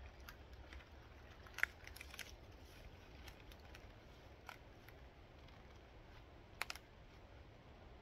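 Faint scattered sharp clicks and snaps, the two loudest about a second and a half in and near the end.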